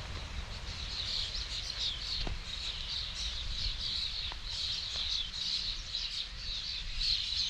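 A large flock of small birds calling at sunrise, many short chirps overlapping in a continuous chatter.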